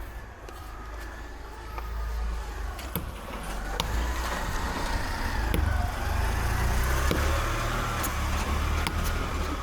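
A motor vehicle's engine running close by, a low rumble that grows louder about two seconds in, with a wavering higher engine note over it. A few faint sharp taps come through the engine noise.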